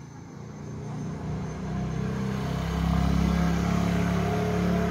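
A motor vehicle's engine that grows louder over the first three seconds, then holds at a steady level.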